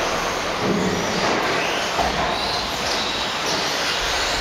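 Several 1/10-scale electric off-road RC buggies racing: high-pitched motor whines rising and falling with the throttle over a steady rush of drivetrains and tyres.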